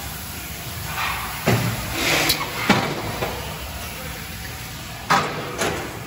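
Factory machinery with a steady low hum, broken by clunks and short hisses. There is a clunk about a second and a half in, a hiss and a sharp click soon after, and another clunk with a hiss about five seconds in.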